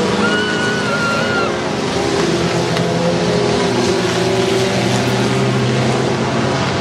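Race pickup truck engines running hard around a dirt track, a steady loud drone of revving engines. A brief high held tone rises over it about half a second in.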